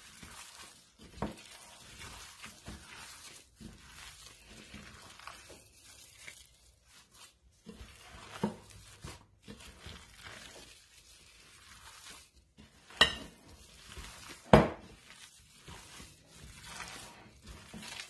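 Gloved hands kneading raw ground-meat meatloaf mixture in a ceramic bowl: soft wet squelching and the rustle of plastic gloves. A few sharp knocks against the bowl come through, the two loudest close together in the second half.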